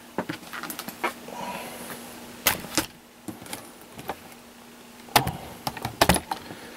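Scattered knocks, clicks and scuffs of a person shifting about in a cramped space and handling the camera, loudest about two and a half and five seconds in, over a faint steady hum.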